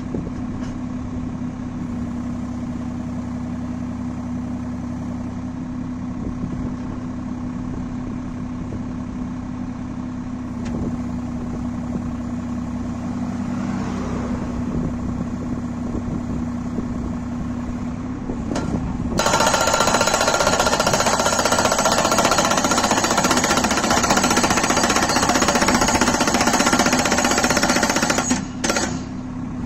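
Tractor-mounted crash-barrier post driver with its engine running steadily. About two-thirds of the way through, its hydraulic hammer starts pounding a steel barrier post into the ground, much louder. The hammering stops shortly before the end.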